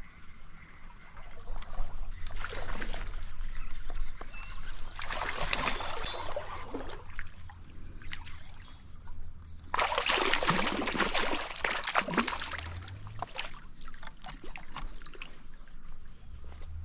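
Splashing water in two spells of several seconds each, as a hooked brown trout thrashes at the surface while it is brought to hand. A low steady rumble runs underneath.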